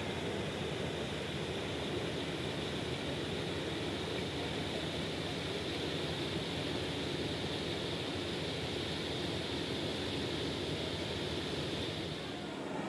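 Steady rushing noise of the passenger ship KM Dorolonda under way as it leaves port, with no distinct tones or knocks.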